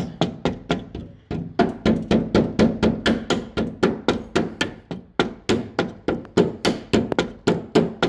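Base of a pair of pliers tapping a door lock cylinder's retaining clip into place on a Ford truck door: a quick run of light metal-on-metal "love taps", about three to four a second, with a short pause about a second in.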